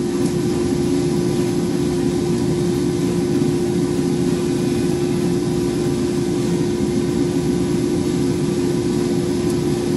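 Diedrich drum coffee roaster running early in a roast, with the beans turning in the drum before first crack. It makes a steady whirring hum with one constant tone.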